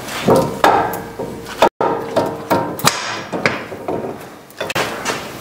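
Repeated sharp metal knocks with a short ring, about two a second, as the CV axle is tapped and pushed back into the transmission to seat it and lock it in place.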